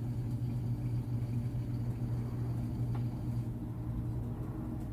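Samsung washing machine running its spin cycle with an empty drum: a steady low hum with a constant drone, and a faint click about three seconds in.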